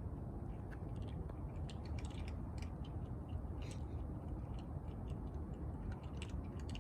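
Cats eating: irregular small clicks of chewing and crunching over a steady low outdoor rumble.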